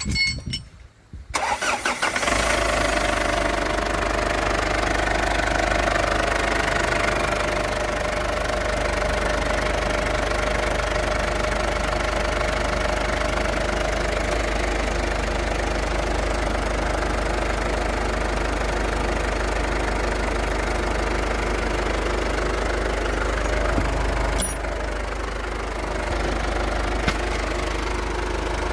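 2011 Ford Ranger engine starting after a brief crank and then idling steadily, a sign that its no-start fault has been cured. About 24 seconds in there is a click and the idle becomes a little quieter.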